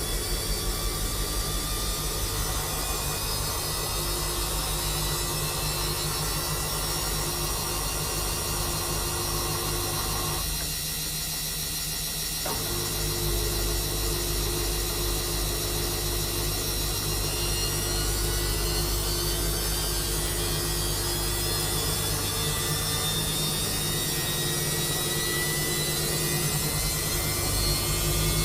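Samsung washing machine running a quick 30° wash, its drum motor giving a steady hum. The motor stops for about two seconds near the middle, then starts again.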